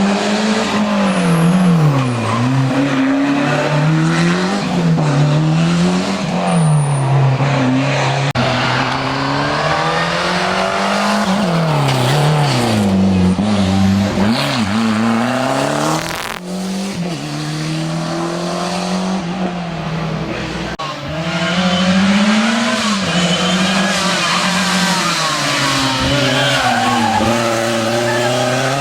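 Historic rally car engine at full racing load on a special stage, revving up and dropping back again and again through the corners, with tyres squealing.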